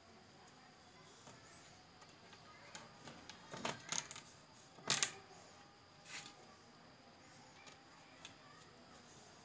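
A wooden handloom and a cotton saree being handled: a few scattered sharp clicks and knocks, the loudest about four and five seconds in, over a faint steady high-pitched hum.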